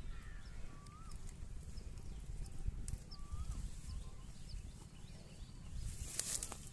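Dairy cow grazing: grass being ripped and cropped, with sharp crackling tears, densest about six seconds in. A bird chirps a few times over a low steady rumble.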